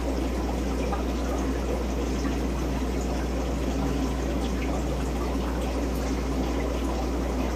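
Aquarium pump humming steadily, with water trickling and bubbling over it.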